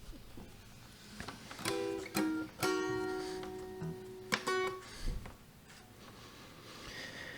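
A plucked string instrument, guitar or ukulele, playing a few single notes as a song intro: four or five notes in the first half, one left ringing for about two seconds, then a quiet stretch.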